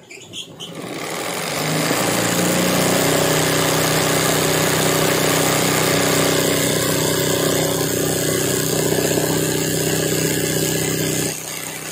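Sewing machine stitching free-hand embroidery at speed. It runs up to speed over the first two seconds, runs steadily, then eases off near the end.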